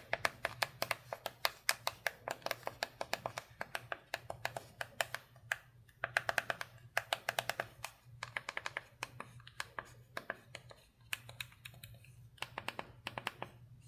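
Rapid, irregular plastic clicks from the Sunbeam F1 Horizon Bluebird flip phone being handled, several a second in runs with short pauses, like its buttons and hinge being worked.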